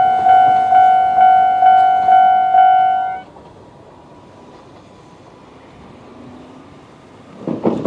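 Japanese railway level-crossing alarm of the old standard electronic type, ringing a repeated tone about twice a second, then cutting off suddenly about three seconds in: the warning ends once the train has cleared the crossing. Near the end a vehicle passes briefly.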